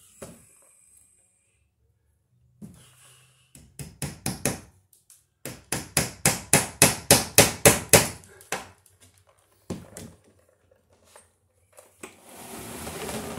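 Hammer driving a cable staple into a wooden ceiling joist to hold electrical cable: a few light taps, then a quick run of about a dozen harder strikes, about five a second.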